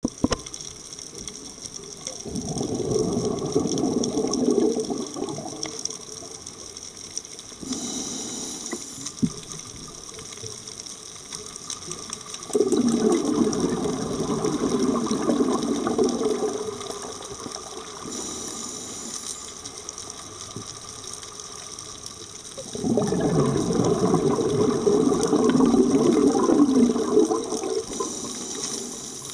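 Scuba diver breathing through a regulator underwater: three long bubbling exhalations, each followed by a short hissing inhalation.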